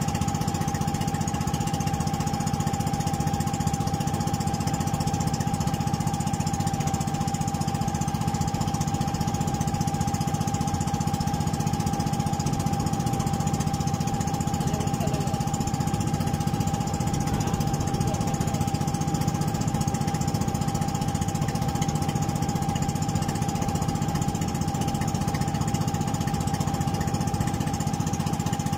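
Outrigger boat's small engine running steadily at cruising speed, a constant drone with a steady whine on top.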